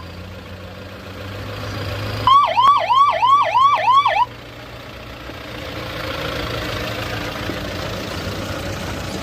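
An electronic vehicle siren sounds a fast yelp for about two seconds, starting about two seconds in: rapid up-and-down sweeps, about three a second. A steady low engine hum runs underneath.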